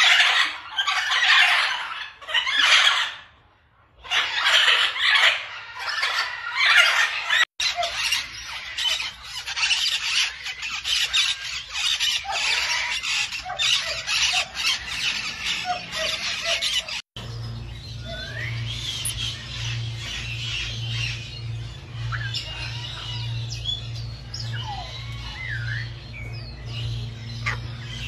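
Parrots squawking. Loud harsh squawks come in repeated bursts for the first several seconds, then busier chattering squawks, and over roughly the last ten seconds quieter whistled calls that glide up and down over a steady low hum.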